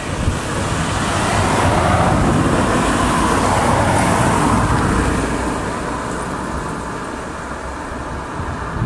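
Class 205 'Thumper' diesel-electric multiple unit approaching, its English Electric four-cylinder diesel engine running. The engine swells over the first few seconds, then eases off.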